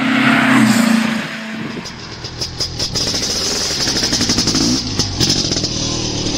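An engine revving up and down over outro music, with a fast steady beat coming in about halfway through.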